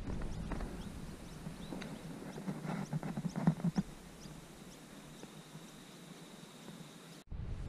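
Quiet outdoor ambience with scattered light scuffs and knocks, most of them between about two and a half and four seconds in, over faint short high chirps that repeat through most of it.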